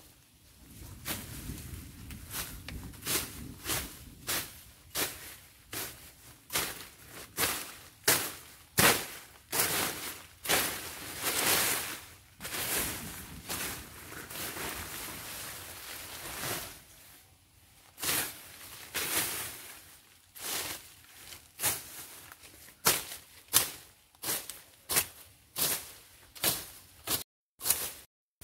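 Long-handled hooked machete swung repeatedly through grass and weeds: a run of swishing, chopping strokes about one to two a second, mixed with the rustle of dry leaves.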